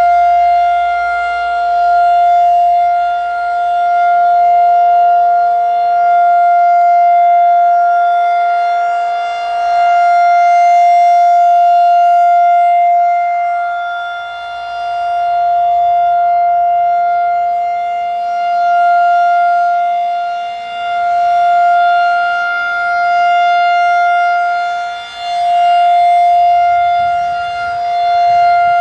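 Federal Signal 2001 roundback outdoor warning siren holding a steady single tone with strong overtones: the full Alert signal of a siren test. There is no rise or fall in pitch. The loudness swells and dips every few seconds as the rotating head sweeps past.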